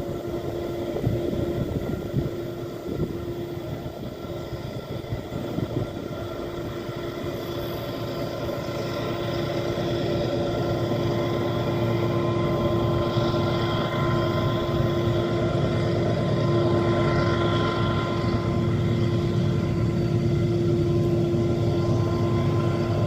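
Diesel-electric freight locomotive under full throttle on a climb: a steady engine drone with a high whine over it, growing louder about eight to ten seconds in and then holding.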